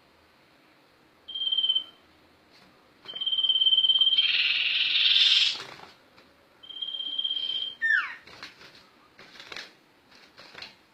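A sirtu (sirpu) songbird singing. Level, high whistled notes are broken by a loud buzzing trill about four seconds in, then a quick falling whistle and a few short chips near the end.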